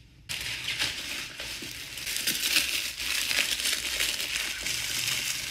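Plastic packaging bag crinkling and rustling continuously as it is handled and opened by hand, starting about a third of a second in.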